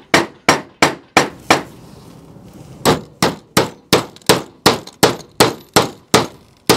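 Hammer striking the metal setting tool of a Draper brass grommet set, about three sharp metallic clangs a second, setting a brass grommet through fabric onto a wooden block. A run of five blows is followed by a pause of about a second and a half, then a longer run of about a dozen.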